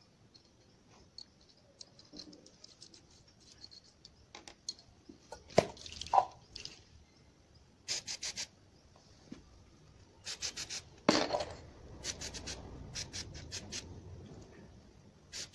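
Flat screwdriver scraping and clinking against a metal intake ring while caked sludge is worked off it, followed by several groups of short hissing spurts from an aerosol cleaner sprayed into the ring to soften the dirt.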